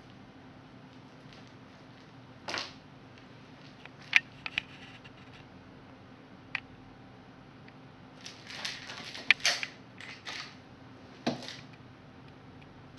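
A kitten at play on a sheet beside wooden boards: scattered rustling with sharp clicks and taps, busiest in the second half, and a dull thump near the end. A faint steady hum runs underneath.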